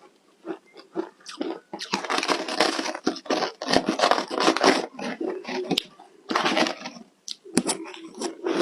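Ice, dusted with matcha powder, being bitten and crunched between the teeth close to the microphone: a few separate cracks, then a dense run of crunching from about two to five seconds in, then more sharp bites near the end.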